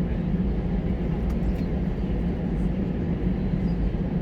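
Airliner cabin noise: a steady, low rumble of the jet engines and airflow heard from inside the passenger cabin.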